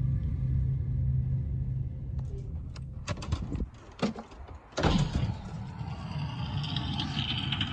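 A low droning intro music fades out. A few clicks and knocks follow, then a short lull. Near the end a steady rushing noise sets in suddenly.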